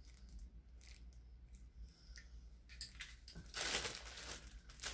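A few faint plastic clicks as a tripod mount is handled, then a clear plastic packaging bag crinkling and rustling from about three and a half seconds in.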